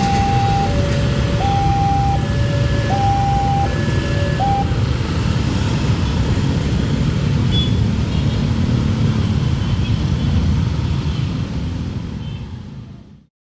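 Railway level crossing alarm sounding a two-tone warning, a lower and a higher note alternating about every three-quarters of a second. It cuts off about four and a half seconds in. Under it a loud, steady rumble of passing traffic fades away near the end.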